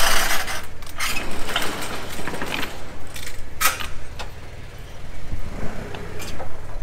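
Propane forklift engine running steadily as the forklift moves up, with rattles and sharp metallic knocks, the loudest at the start and one about three and a half seconds in.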